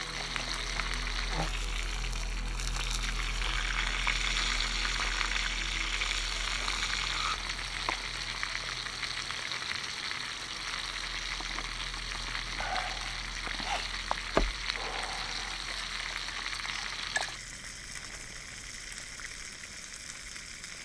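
Small canister backpacking stove burning under a pot with a steady hiss, with a few faint knocks and a sharp clack about two-thirds of the way through. The hiss falls away suddenly near the end, leaving a quieter background.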